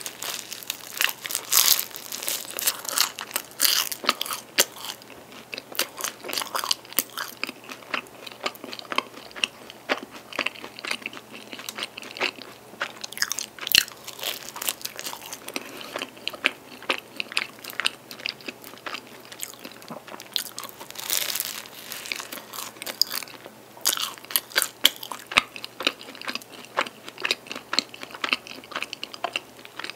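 Close-miked eating of a flaky, cream-filled tiramisu pie: crisp pastry layers crackle and crunch between the teeth, with denser runs of crunching at each new bite and softer chewing in between.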